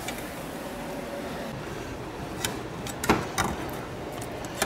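A few knocks and clatters from pans and utensils being handled, the loudest about three seconds in, over a steady low hum.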